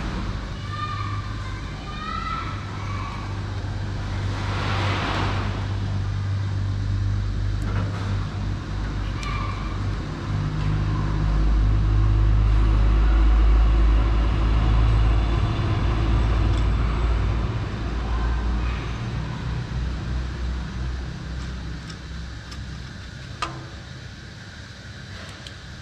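A low engine rumble that swells to its loudest about halfway through and then fades away, like a motor vehicle going by, with a short hiss about five seconds in and one sharp click near the end.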